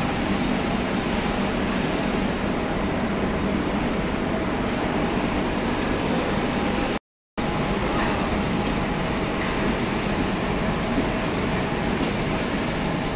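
Steady, loud noise of industrial plant machinery running, with a faint high whine over it. It drops out completely for a moment about seven seconds in.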